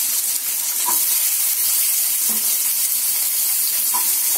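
Small onions (shallots) frying in hot oil in a non-stick kadai, a steady sizzling hiss.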